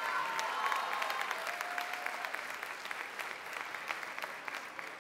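Audience applauding, with a few cheering voices over the clapping in the first two seconds; the clapping thins out toward the end.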